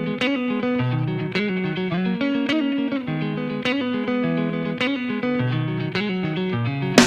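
Instrumental music from a song's intro, with a repeating figure struck about once a second over held notes. Drums come in right at the end.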